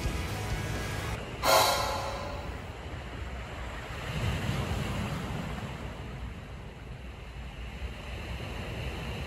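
Surf washing over a rocky boulder shore, a steady rushing wash that swells again about four seconds in. About a second and a half in, a sudden loud crash, such as a wave breaking on the rocks, is the loudest moment.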